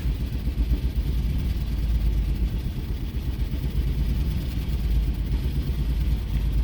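A 2006 Jeep Commander's 4.7-litre V8 running with a misfire, held on light throttle because it shuts off at idle. The owner takes the misfire as a sign that the engine itself is no good.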